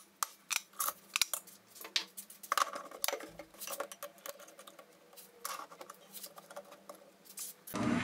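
Irregular metallic clicks and knocks of lathe parts being handled as a wood blank is clamped in a scroll chuck with its chuck key and the tool rest is set. Near the end the lathe motor switches on and runs steadily.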